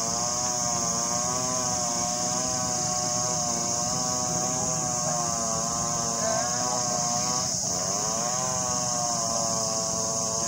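Car engine heard from inside the cabin while driving, its pitch climbing as it pulls. About seven and a half seconds in the revs drop briefly, as at a gear change, then climb again, over a steady hiss.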